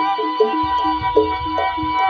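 Amplified jaranan ensemble music: a quick run of short stepped melody notes over a steady held high tone, with low drum beats coming in about half a second in.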